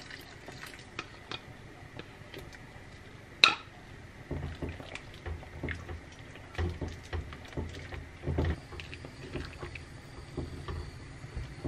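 Tamarind water poured into a pan of vegetable soup, then a silicone spatula stirring through the chunky broth, with soft knocks and scrapes against the pan. A single sharp click about three and a half seconds in.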